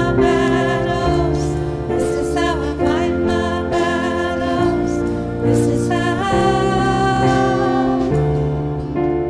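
Worship music: a singing voice over sustained chords that change about once a second.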